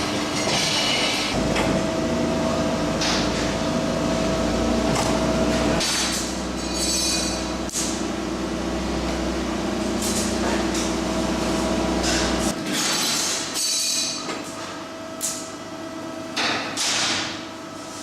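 Heavy sheet-metal shop machinery running, likely the large hydraulic press brake: a steady machine hum with a low rumble that stops about 12 seconds in, scattered metallic knocks and short hissing bursts.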